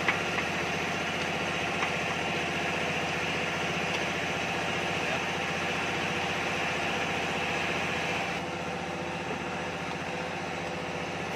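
An engine idling steadily, with an even pulse and a slight drop in level about three-quarters of the way through.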